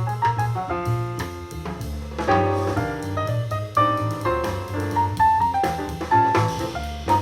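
Instrumental jazz with piano, bass and drum kit, played back through a DIY Bluetooth boombox fitted with two 3-1/2-inch Dayton Audio ND90 aluminium-cone full-range drivers and driven by a 2x15 W class-D amplifier, as a sound test.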